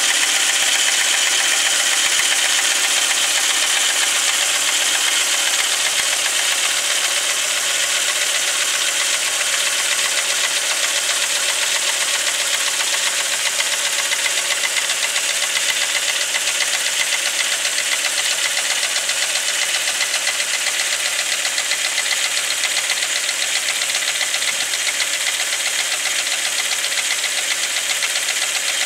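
Volkswagen Passat B5's VR5 five-cylinder engine running steadily with a fast, even knocking from inside the engine, whose cause the owner is trying to find.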